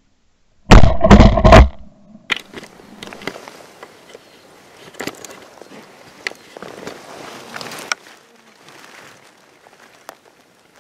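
Shotgun fired at a flying wood pigeon about a second in, very loud and close, with a short ringing tail. Faint scattered clicks and rustles follow.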